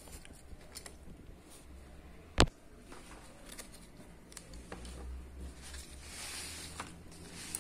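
Quiet room with faint handling sounds and one sharp click about two and a half seconds in.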